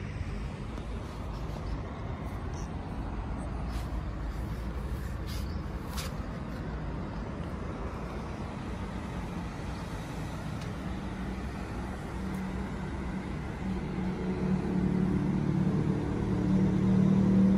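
Steady road traffic hum. Over the last few seconds a bus engine's steady drone grows louder.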